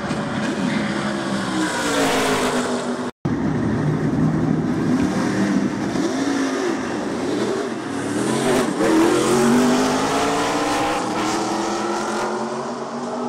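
NASCAR Truck Series race trucks' V8 engines running at speed past the listener. Several engines overlap, and the pitch of each rises and falls as it goes by. The sound drops out for an instant about three seconds in.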